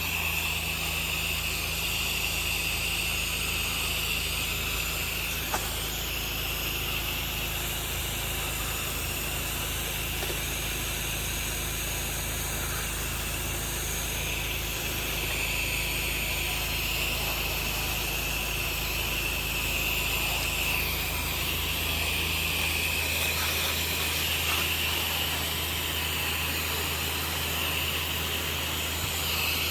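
Pressure washer running, its water spray giving a steady hiss over the low, even hum of the machine.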